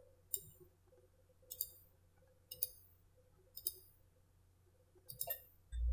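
Faint clicks of a computer trackball's buttons, about one a second, some in quick pairs, with a small cluster near the end.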